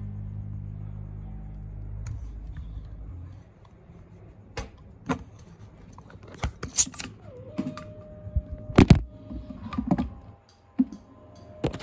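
Background music that cuts out about three seconds in, followed by irregular clicks, taps and knocks of the recording phone being handled and picked up, loudest about nine seconds in.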